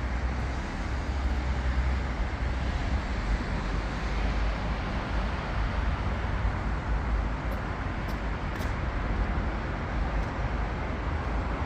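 Steady road traffic noise from cars on a city street, with a continuous low rumble.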